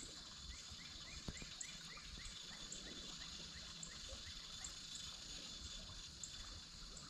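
Faint outdoor ambience: a bird gives a quick run of short rising chirps, about four a second, for two seconds, while brief high chirps come every half second or so over a steady high hum.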